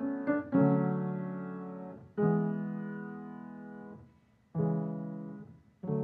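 Solo piano playing slow chords, each struck and left to ring and fade, after a few quick notes at the start, with a brief pause before the last two chords.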